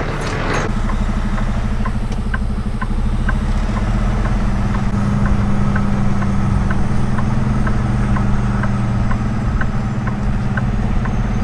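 Kenworth T680 semi truck's diesel engine running low and steady, heard from inside the cab as the truck moves slowly, with faint light ticks about twice a second.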